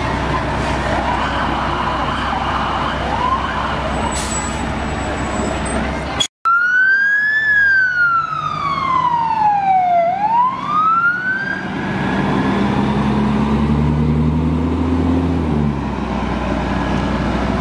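Fire engine running steadily; after a brief cut about six seconds in, its siren falls in pitch and rises again once, then the engine revs up as the truck pulls away.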